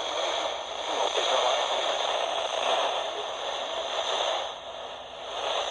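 NOAA Weather Radio receiver hissing and crackling with static on weak reception, the broadcast voice lost in the noise; the static fades briefly near the end and comes back.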